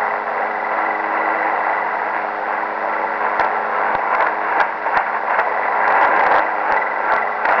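Shortwave radio receiving a garbled, distorted signal: a dense, steady noise with several held tones underneath and scattered crackles. It is Chinese music from a language-training broadcast, made unrecognisable by being received in USB (upper sideband) mode.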